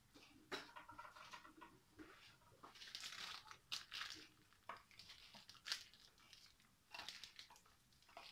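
Faint crinkling and rustling of a plastic piping bag filled with churro dough as it is handled, in a series of short, irregular crackles.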